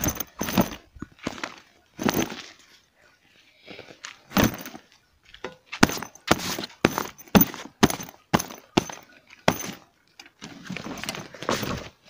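A fabric backpack handled against the recording phone: irregular knocks and rustles of handling noise, with a quick run of knocks about six seconds in.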